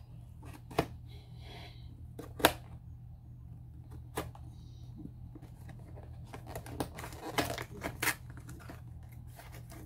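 Scissors cutting through a cardboard carton: a few sharp, separate snips, then a quicker run of snips and cardboard rustling as the cut flap is pulled open near the end.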